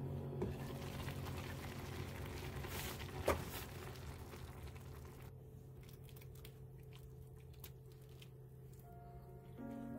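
Pork kimchi stew boiling hard in a pot, a dense crackling bubble. About three seconds in a glass pot lid clinks once as it comes off, and after that the bubbling is quieter, with scattered pops, over a steady low hum.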